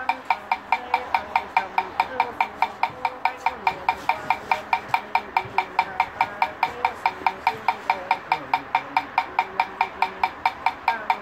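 Wooden fish (mõ) struck with a stick in a fast, even beat of about five knocks a second, each knock with a hollow ringing tone, under a man's low Buddhist chanting.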